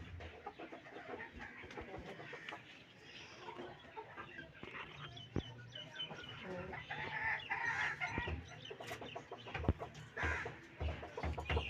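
Chickens clucking and calling in short, scattered notes.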